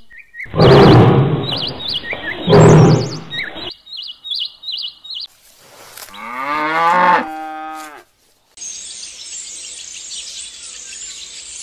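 A cow mooing once, a long call that rises in pitch and then levels off. Before it come two loud harsh animal calls and a few short bird chirps, and a steady high hiss follows it.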